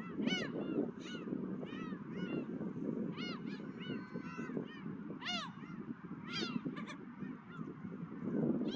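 Seagulls calling over and over, short rising-and-falling cries, some in quick runs, over a steady rush of wind.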